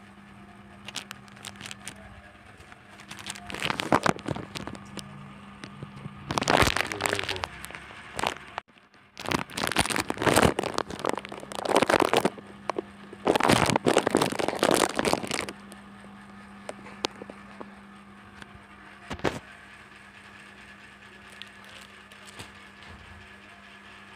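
Thin plastic packaging crinkling and rustling in several loud handling bursts as a wallet is unwrapped, with scattered clicks between them. A steady low hum runs underneath.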